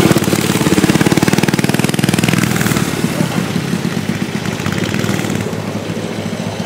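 Mini bike's small engine running with a rapid, even firing rhythm, loudest at first and fading steadily as the bike moves away.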